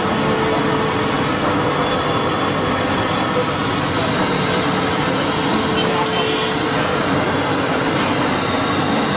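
Steady, unbroken street din, an even noisy rumble and hiss with no breaks.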